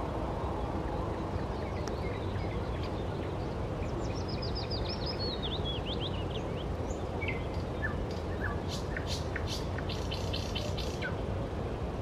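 Songbirds singing in trees: scattered chirps, with a descending trill of quick notes about four seconds in and a run of short sharp clicks near the end, over a steady low background rush.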